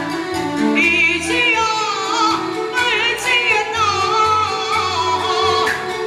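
A Taiwanese opera (gezaixi) aria sung through a microphone over a live accompaniment band; the voice comes in about a second in with long, wavering, ornamented notes, over a steady pulse of bass notes.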